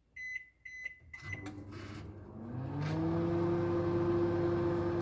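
Microwave oven keypad beeping three times as the time is set, then the microwave starting up: its hum rises in pitch and settles into a steady drone.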